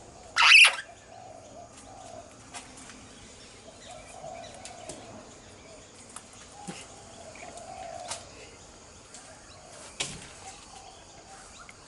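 Princess parrots: one short, loud, bright burst about half a second in, then soft low chattering with a few light clicks.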